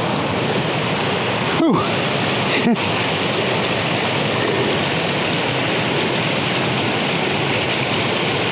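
Swollen moorland stream in spate rushing over rocks, a steady torrent of water noise, with two brief bumps about two and three seconds in.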